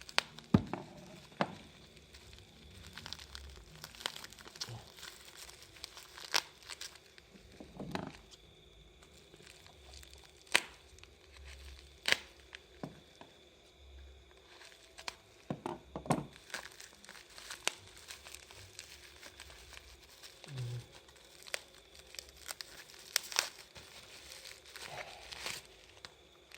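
A small parcel's packaging being opened by hand: irregular crinkling and tearing with scattered sharp snaps and rustles.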